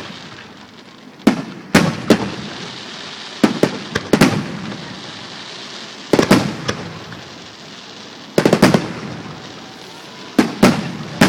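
Aerial fireworks shells bursting with sharp bangs, in clusters of two to four about every two seconds, each bang trailing off in echo.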